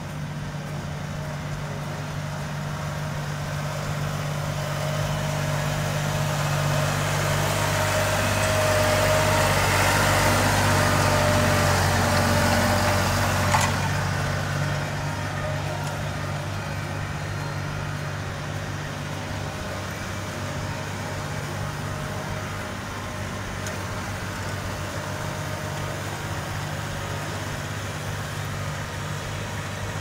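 Tractor engine running steadily while working a plowed field, growing louder as it comes close around the middle and easing off afterwards, with one short sharp knock about halfway through.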